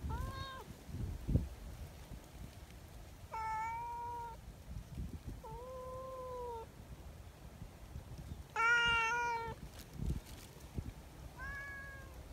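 Brown tabby cat meowing five times at intervals of a few seconds, each meow short and clear, the loudest about nine seconds in. Soft low thumps and rustles come between the meows.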